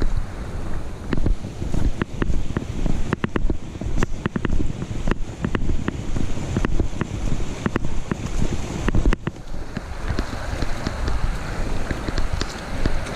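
Walking on a dirt trail with a chest-strap-mounted action camera: irregular clicks and knocks as the camera jolts with each step, over a steady low rumble of wind and rubbing on the microphone. About ten seconds in, the steady rush of a rocky creek beside the trail comes up.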